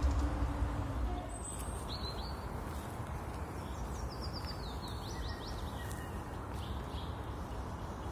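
Small songbirds chirping over steady outdoor background noise: a few short high calls, then a quick run of descending notes near the middle. A low rumble fades out about a second in.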